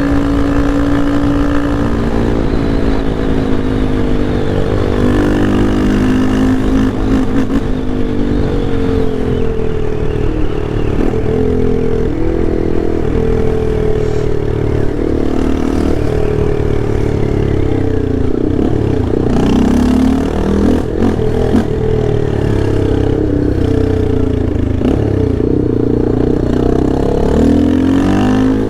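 Yamaha Lander 250's single-cylinder four-stroke engine under hard riding. It holds a steady pitch for a couple of seconds, then revs up and drops back over and over as it accelerates and shifts or rolls off the throttle.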